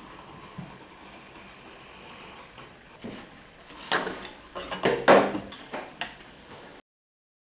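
Steel rule and craft knife being lifted off veneer on a wooden chest top and handled: a few scraping and clattering knocks, loudest about five seconds in. The sound cuts out near the end.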